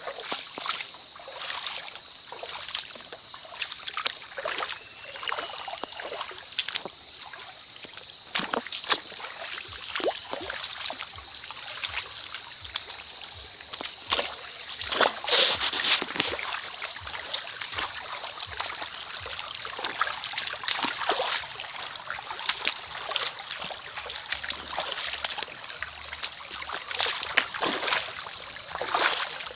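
Shallow creek water splashing and sloshing in irregular short strokes, over a steady trickle and a constant thin high-pitched tone.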